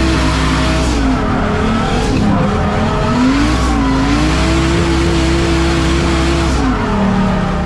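BMW E30 drift car at full throttle in a drift, heard from inside the cabin: the engine holds high revs with brief dips about two and three and a half seconds in, then drops near the end, over steady tyre squeal.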